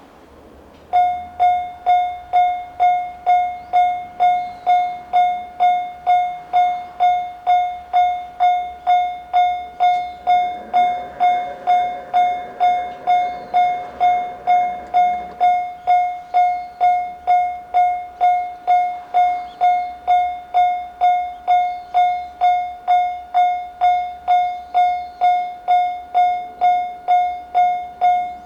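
Japanese railway level crossing's electronic warning bell, the JR standard single-tone type, starting about a second in: one clear ringing tone struck over and over, a little under two times a second, each strike dying away quickly. It is the crossing alarm signalling an approaching train.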